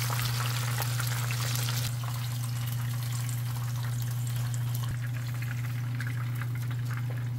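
Battered swimming crab deep-frying in hot oil: a dense crackling sizzle, brighter for the first two seconds and then a little softer, over a steady low hum.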